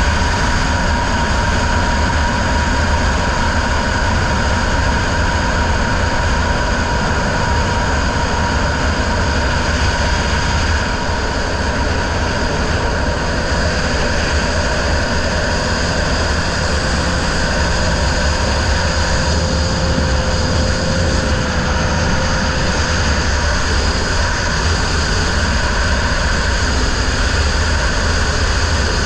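A racing riverboat's outboard motor running steadily at speed, a loud continuous drone heard from aboard the boat.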